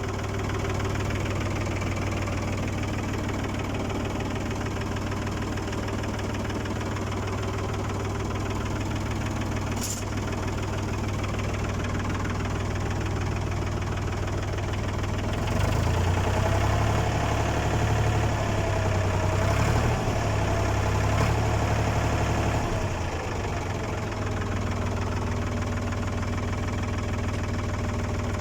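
Ford 4000 tractor engine running steadily with a deep, even drone. About halfway through it gets louder for several seconds, with a wavering whine over it, then settles back.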